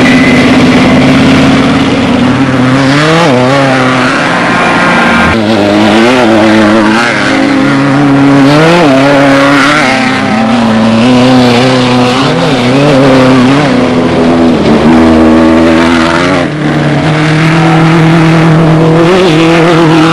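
Off-road desert race vehicle's engine running hard, revving up and dropping back over and over, its pitch climbing and falling every couple of seconds as the throttle is worked.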